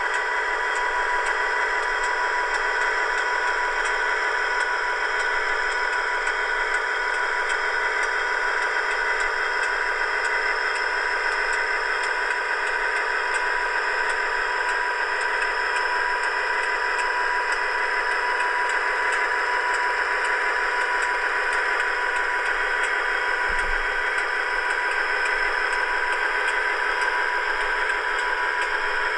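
Sound-fitted Dapol OO gauge Class 59 model locomotive playing its recorded EMD two-stroke diesel engine sound through its small onboard speaker. The engine note runs steadily at an even pitch, thin and without deep bass.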